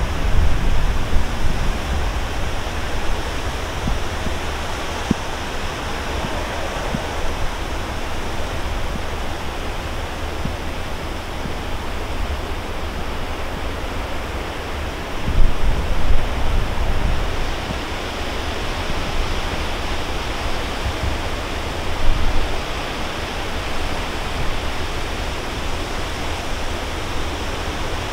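Strong gusty storm wind buffeting the microphone over a steady rushing noise, with low rumbling gusts at the start, a stronger one about halfway through, and another a few seconds later.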